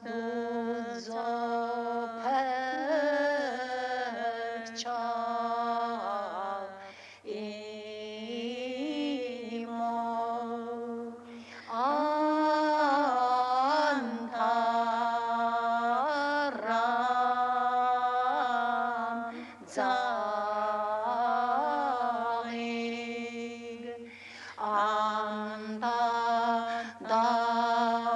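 Chanted, ornamented singing by a voice in long wavering phrases over a steady held drone, with brief breaks between phrases.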